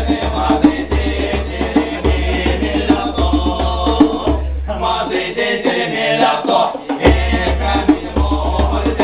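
Group of men singing an Erzya folk song together, with wooden percussion keeping a beat.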